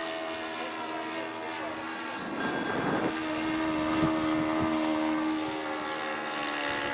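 Saito 82 four-stroke glow engine of an RC Seagull Decathlon model airplane running in flight, a steady drone whose pitch steps up slightly about three seconds in. A brief rush of noise comes just before the pitch change.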